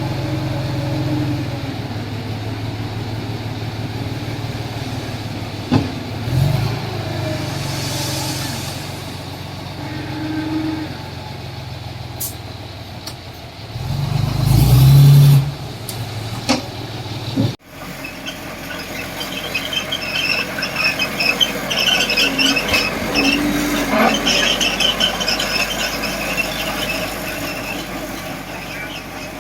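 Small Komatsu D20P bulldozer's diesel engine running steadily, with a loud surge of power about fourteen seconds in. After an abrupt cut, a high, irregular squealing and rattling takes over, the sound of the dozer's steel tracks as it works.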